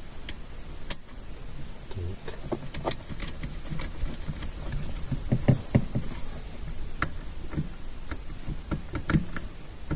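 Irregular clicks and knocks of hands and tools handling the seat-belt buckle's metal mounting bolt and bracket by the car seat.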